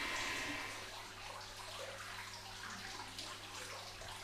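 Floodwater splashing and trickling lightly in a flooded room, in small irregular splashes, over a low steady hum.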